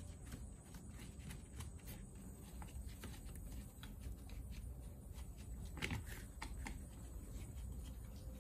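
Scattered light clicks and taps of parts and tools being handled on a removed car starter motor being taken apart, with one louder knock about six seconds in, over a low steady hum.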